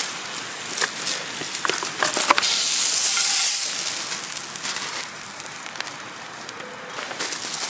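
Steak sizzling over a campfire, with sharp crackles in the first couple of seconds; the sizzle is loudest about three to four seconds in, then dies down.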